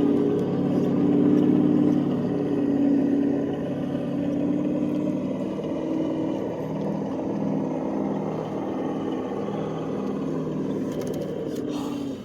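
Electric motors and gearboxes of RC rock crawlers whining under load, the pitch wavering as the throttle changes, cutting off suddenly near the end.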